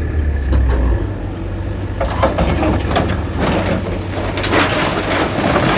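Diesel engine of a demolition bulldozer running steadily. From about two seconds in come repeated crashing and clattering of a structure breaking and debris falling.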